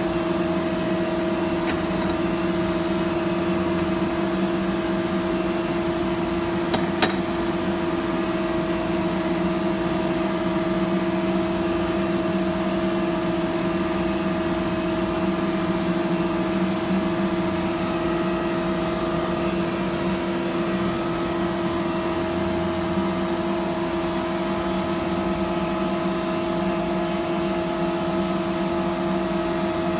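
Steady machine hum at an unchanging pitch from shop machinery running beside a CNC router, with one sharp click about seven seconds in.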